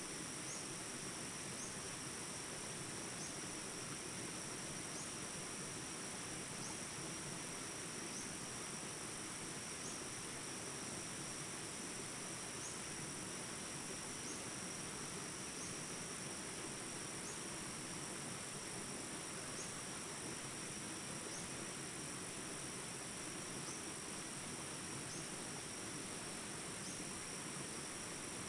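Jungle ambience recording: a small rapids rushing steadily under a constant high insect drone, with faint short chirps every second or two.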